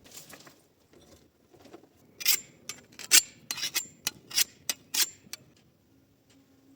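A quick series of sharp clinks and knocks of hard objects, about a dozen over three seconds, several with a short high ring.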